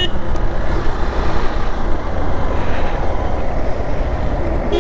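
Benelli TRK 502X parallel-twin motorcycle being ridden: steady engine and road noise under heavy wind rush on the microphone. A short horn beep comes near the end.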